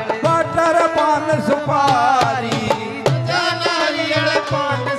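Amplified live bhajan: a man singing a bending, ornamented melody into a microphone over a dholak drum beat.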